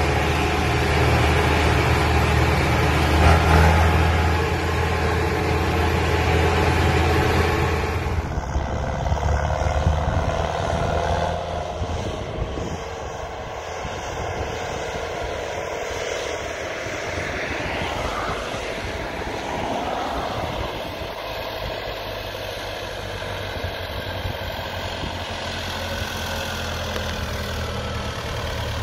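David Brown 1290 tractor's four-cylinder diesel engine labouring under heavy load as it hauls a low loader with a 13-tonne excavator, a train weight of close to 20 tonnes. It is loud and close for the first eight seconds, then drops suddenly to a fainter, more distant sound with a car going by, and the engine grows louder again near the end.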